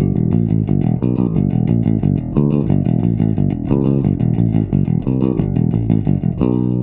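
Custom four-string Carrigan Designs electric bass with a Kent Armstrong MM pickup, picking a quick run of low notes at several notes a second. Near the end the pitch slides down.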